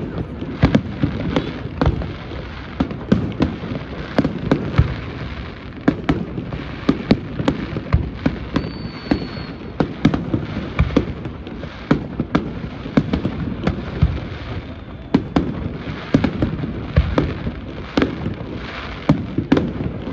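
Aerial fireworks display: a dense, irregular run of bangs from bursting shells, several a second, over continuous crackling, with a brief high whistle about nine seconds in.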